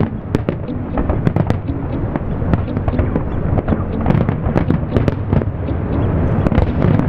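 Fireworks display: a dense, continuous run of sharp crackles and pops from bursting shells, over a steady low rumble.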